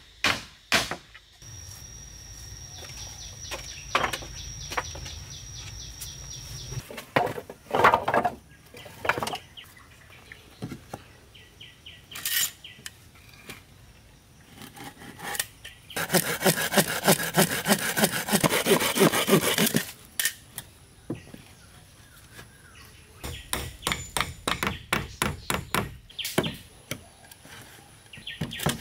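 Hand work on wood: a few sharp knocks at the start, then a steady high whine for about five seconds. A stretch of quick back-and-forth sawing strokes follows in the middle, and near the end comes a run of knocks, about three a second.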